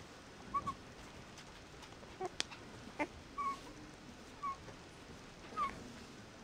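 Young puppies giving short, faint high squeaks, about five times. A few small clicks come in between.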